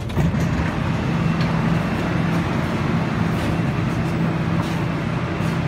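Interior noise of an older Bombardier-built Guangzhou Metro Line 1 car in motion: a loud, steady rumble with a low hum, a faint high tone coming in about a second and a half in, and a few light clicks.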